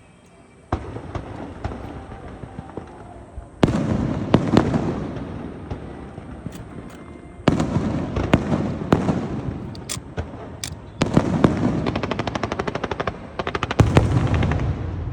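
Aerial fireworks going off in five waves, each opening with a sudden burst and trailing into dense crackling and sharp pops, with fast, even runs of popping in the later waves.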